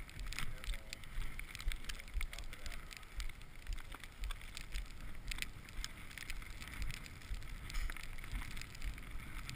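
Wind buffeting the camera microphone in uneven gusts of low rumble, with scattered clicks and rustles.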